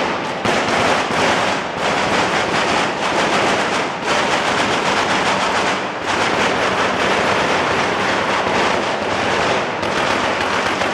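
Fireworks and firecrackers on a ceremonial cart going off in a dense, unbroken barrage of rapid bangs and crackles, easing briefly now and then.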